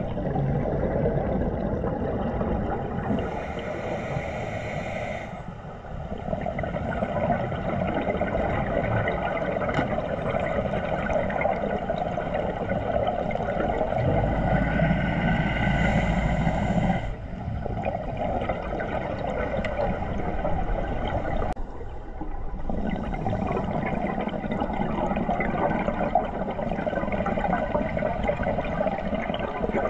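Scuba diving sound heard underwater through a camera's waterproof housing: a muffled, steady water rush, with louder stretches of regulator breathing and exhaled bubbles about three seconds in and again around fourteen seconds.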